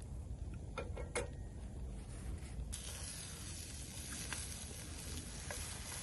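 Chopped carrots and onion frying in butter in a frying pan, sizzling, with a couple of sharp clicks early on from stirring. The sizzle suddenly gets much louder a little under three seconds in and holds steady.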